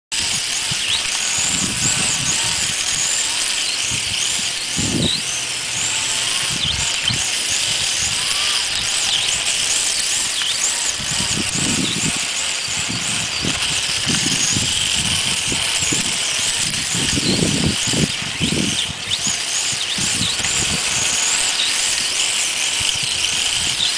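Electric motor of a small radio-controlled drift car whining, its pitch rising and falling over and over as the throttle is worked. There are occasional low rumbles now and then.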